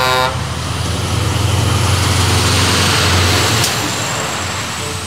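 Scania semi-trailer truck driving past: a steady diesel drone and tyre noise, loudest a few seconds in, then easing off as it goes by. A horn blast cuts off just after the start.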